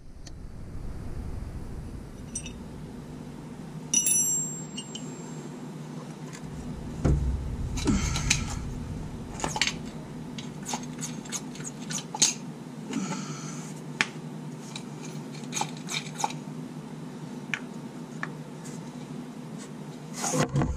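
Small metallic clinks, taps and scrapes with a few short rustling hisses, from hand work with a wrench and bleeder tubing at a Jeep's rear brake bleeder screw during brake bleeding, over a steady low hum.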